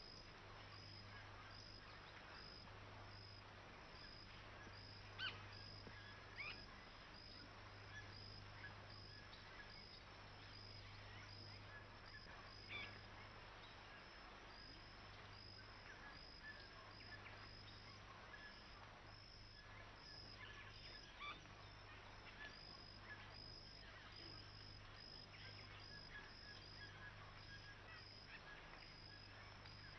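Faint wild outdoor ambience: a high chirp repeating steadily, with a few short bird calls now and then over a low steady hum.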